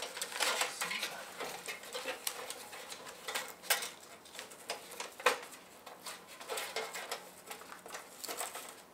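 Hands handling the folding titanium wood stove and its strap: irregular light metallic clinks and taps with some rustling, two sharper knocks near the middle.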